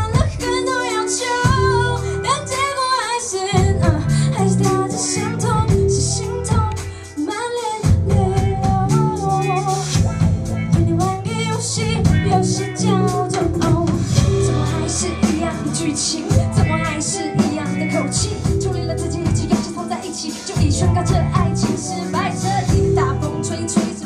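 A female singer sings a pop song live into a handheld microphone over a band with drums and bass. It is recorded from far back in the audience, so the sound is distant and not very clear.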